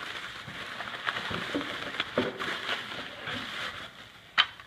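Plastic bubble wrap rustling and crinkling as it is unwrapped from a boxed item, with a sharp click near the end.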